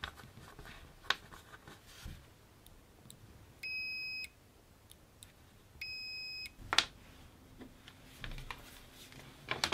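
Continuity tester beeping twice, each a steady high beep of under a second, as a CNC limit microswitch is pressed closed across its probes: the switch's contacts show continuity when closed. A few light clicks from handling the switch and probes.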